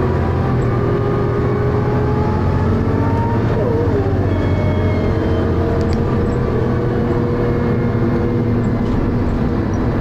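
Dennis Arrow bus's diesel engine running under way, heard on board as a loud, steady drone with a rough thrash, its pitch drifting slightly. A faint high whine sits above it.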